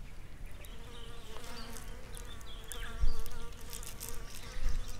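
A flying insect buzzing near the microphone, a steady hum that wavers slightly in pitch. Two low bumps, louder than the buzz, come about three seconds in and again near the end.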